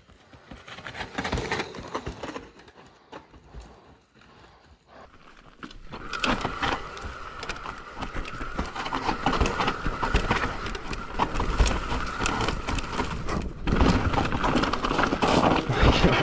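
Mountain bike rolling down a steep rock slab, its tyres and frame clattering over rock and roots. About six seconds in it gets louder, with a steady high squeal from the disc brakes under hard braking.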